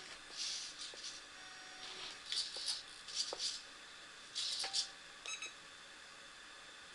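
Redcat Rockslide RS10 XT RC rock crawler's electric motor and drivetrain whirring in short throttle bursts, about five of them, with light knocks from the truck bumping over obstacles. A brief high whine a little after five seconds.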